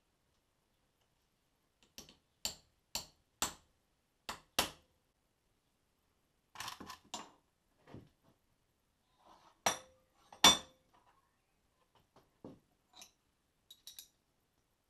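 Hammer tapping metal held in a steel bench vise: about six sharp taps, roughly two a second. Then scattered metal clinks and clanks from the vise and hand tools, with one loud clank about ten seconds in.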